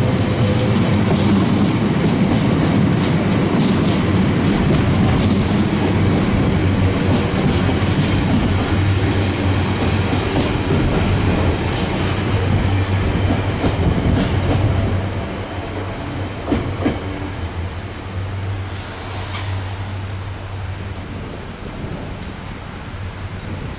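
Diesel train running through the station close by, loud and steady at first, then dropping away about fifteen seconds in as it moves off.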